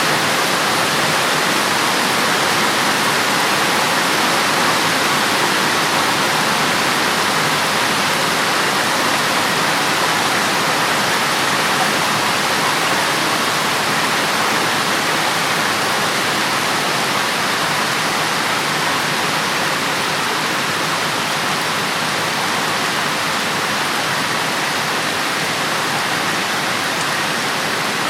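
Heavy rain pouring down: a dense, steady hiss of countless raindrops, unchanging in loudness.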